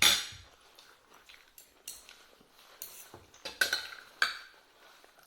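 Cutlery clinking and scraping against plates while eating: one sharp, loud clink at the start, then a few lighter clicks and scrapes.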